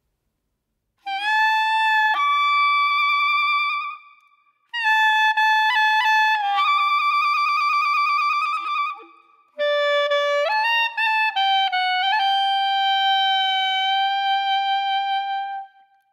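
Background music: a solo wind instrument plays a slow, unaccompanied melody of long held notes in three phrases, with short pauses between them.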